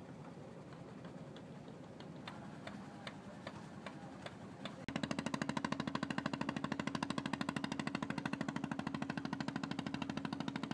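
Low background noise with faint scattered clicks. About halfway in it gives way abruptly to a small boat's engine running with a fast, even pulsing, about ten beats a second, much louder than what came before.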